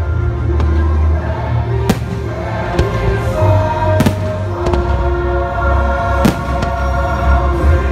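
Aerial firework shells bursting with sharp bangs about two, four and six seconds in. Under them runs loud show music with held notes and a deep bass.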